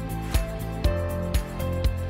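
Background music with a steady beat, about two beats a second, over held notes and bass.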